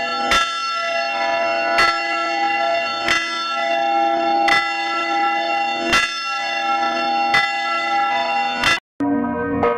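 Church bell tolling, struck about every second and a half with a long ring carrying between strokes. It cuts out briefly near the end, and a different bell sound begins.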